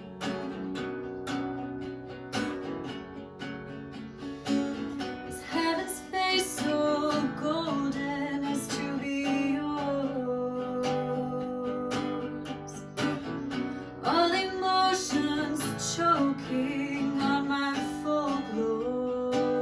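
Acoustic guitar strummed and picked through a slow song passage, with a singing voice coming in at times.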